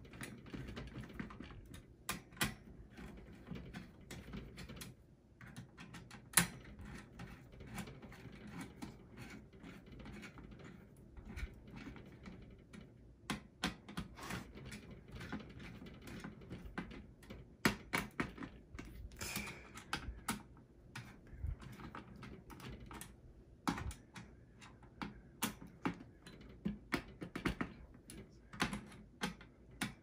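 Screwdriver turning the mounting screws of a desktop PC's CPU heatsink: irregular light clicks and ticks of metal on metal, a few sharper than the rest.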